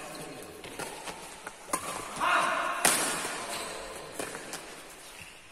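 Badminton rackets striking a shuttlecock in a doubles rally: a series of sharp hits, the loudest just before three seconds in, echoing around a large sports hall.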